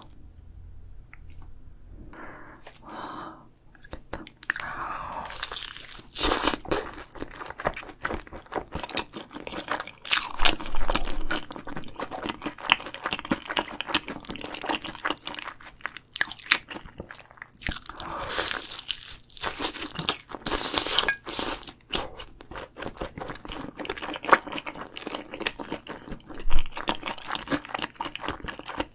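Close-miked eating of Korean sauced fried chicken (yangnyeom chicken): crisp crunching bites into the coated drumstick and steady chewing, with a few loud crunches through the middle.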